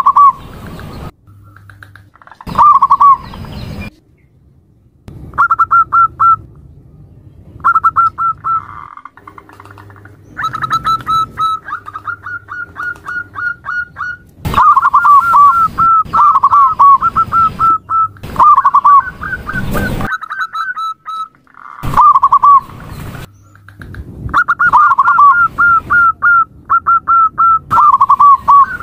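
Zebra dove (perkutut) calling, labelled as a female's call: quick runs of short staccato coos, phrase after phrase, sometimes two runs overlapping at slightly different pitches.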